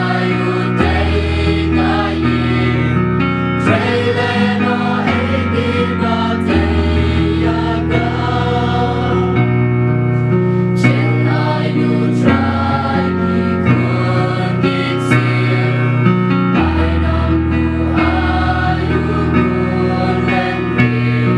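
Choral gospel song: a choir singing over sustained chords, with a bass line that moves to a new note every couple of seconds.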